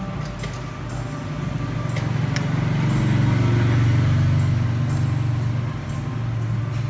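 Low engine drone of a passing motor vehicle, swelling to its loudest three to four seconds in and then easing off, with a few faint light clicks.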